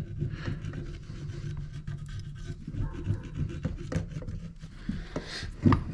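An old piston oil ring scraping carbon out of the ring grooves of an LS 5.3 V8 piston: faint, irregular scratching and small clicks of metal on metal, with heavy breathing close to the microphone.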